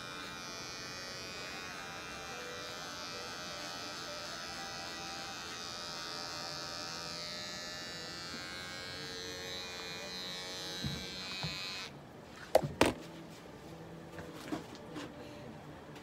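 Small handheld electric pet clipper buzzing steadily as it shaves the fur from a cat's leg to bare the vein for a blood draw. The buzz cuts off about twelve seconds in, followed by a few sharp knocks.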